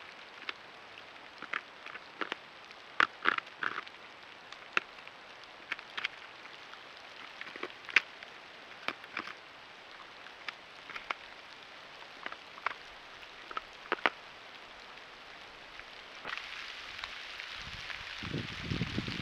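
A beaver at a large aspen, heard through a trail camera's microphone: a steady hiss with scattered sharp ticks. About three seconds from the end the hiss grows, and low, rough sounds come in as the beaver gnaws at the trunk.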